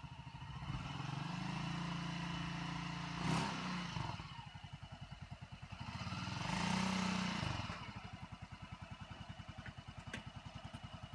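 Hunter 200 cc ATV buggy engine running at idle and revved up twice, each time for a couple of seconds, about a second in and again about six seconds in, then settling back to a pulsing idle. A sharp clack comes about three seconds in.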